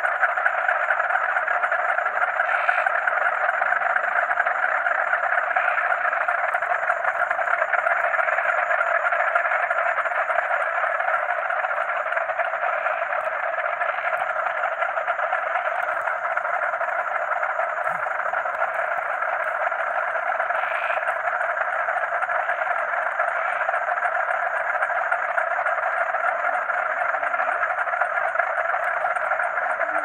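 Dense chorus of many frogs calling over one another without a break, with a steady high-pitched cricket trill above it.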